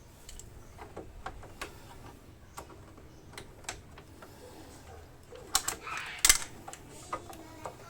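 Irregular clicks and light taps of hands and small tools working on plastic motorcycle fairing parts, with a quick flurry of louder clicks and a rustle a little past halfway.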